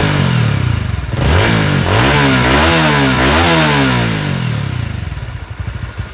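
Honda Winner X's single-cylinder DOHC engine being revved in a run of quick throttle blips, its pitch rising and falling several times, then settling back to idle by about five seconds in, with a second motorcycle idling alongside.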